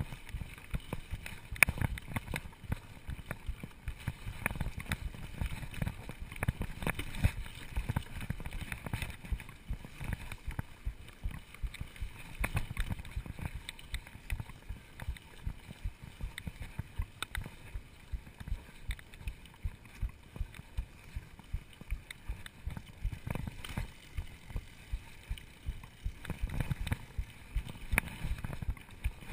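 Mountain bike ridden along a dirt singletrack: tyres rolling over packed dirt and leaf litter with a low rumble, and the bike rattling, with frequent sharp knocks over the bumps.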